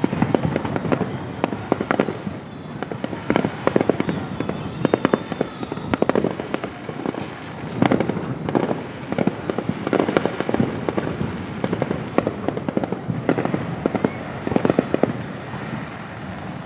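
Fireworks display going off: rapid clusters of sharp bangs and crackles, one burst after another every second or so.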